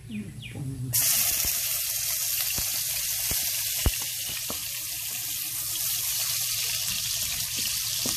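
Minced garlic dropped into hot oil in a wok, starting a loud sizzle about a second in that holds steady, crackling with scattered pops and one sharp click near the middle.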